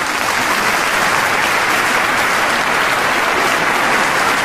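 Crowd applauding: steady, dense clapping.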